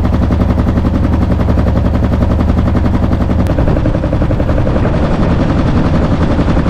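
Small single-cylinder gas engine of a Swamp Runner mud motor running steadily with rapid exhaust pulses, pushing a small boat along. Its note shifts a little past the middle.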